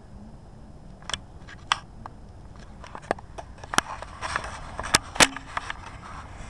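A string of short, sharp clicks and snaps at irregular intervals, a couple about a second in and then more and more often toward the end.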